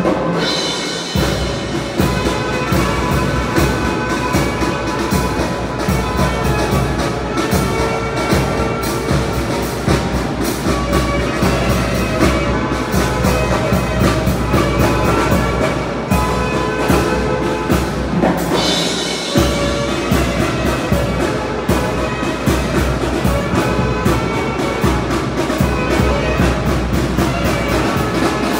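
Tamborazo band playing: saxophones and brass carry the tune over a steady beat of the tambora bass drum and snare.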